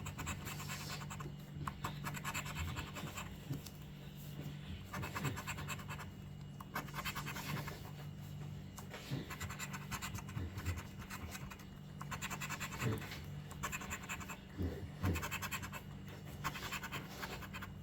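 Scratch-off lottery ticket being scratched, the coating scraped off in several spells of rapid back-and-forth strokes with short pauses between them.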